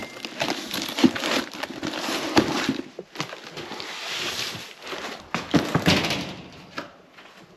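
Cardboard box being handled and shifted, with rustling and crinkling of cardboard and plastic packing and scattered knocks. It dies down near the end.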